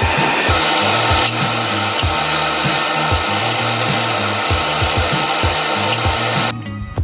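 A power tool working pine wood, running steadily and stopping abruptly near the end. Background music with a steady beat plays underneath.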